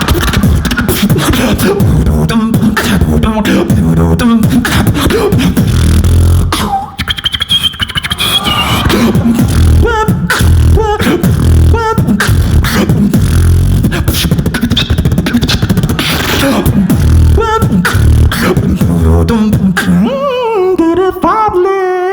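Human beatboxing: deep bass kicks, sharp snares and clicks in a steady beat, with short pitched vocal notes over it. Near the end a wavering voiced tone slides up and down.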